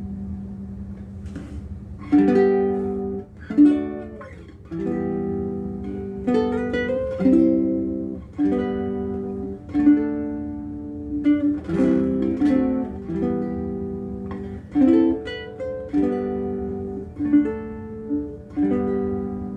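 A Bruko mahogany baritone ukulele with a bone saddle is played as a steady run of chords, each one struck and left to ring.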